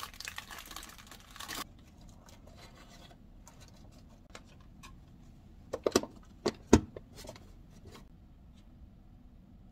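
Kitchen handling. Mushrooms and their plastic packaging rustle for about the first second and a half. Then come light scratches and ticks, and a few sharp knocks of a plastic container and dishes set down on a stone counter, about six to seven seconds in.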